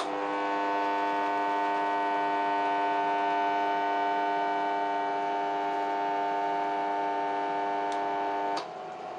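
Microwave-oven-transformer spot welder humming steadily under load as current heats a steel nut red-hot between its electrodes. It switches on with a click and cuts off suddenly about eight and a half seconds in, when its timer switches it off.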